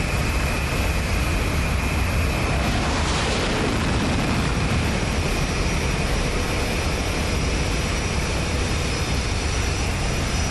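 Military jet aircraft in flight: steady, loud jet engine noise with a faint steady whine, swelling briefly about three seconds in.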